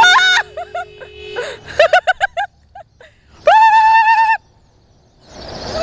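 A car horn held as a steady tone for about the first second and a half, under a high-pitched voice squealing, then quick short bursts of laughter around two seconds in and one long high squeal near the middle.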